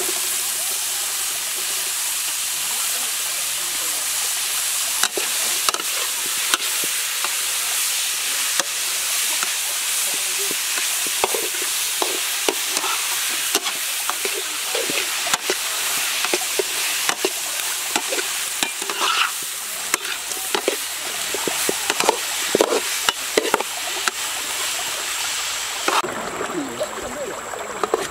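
Chopped bell peppers and onion sizzling in a hot wok, with a metal spatula scraping and clinking against the pan as they are stirred. The sizzle quietens near the end.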